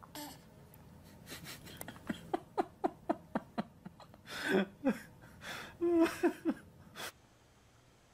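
A baby giggling in a run of short falling sounds, about three a second, with a couple of louder breathy squeals near the middle.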